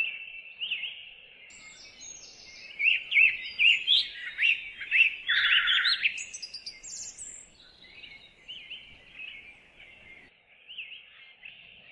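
Songbirds singing in woodland: many short chirps and whistles that grow busier from about three seconds in to about six seconds in, with a brief buzzy note in the middle, then thin out to scattered calls.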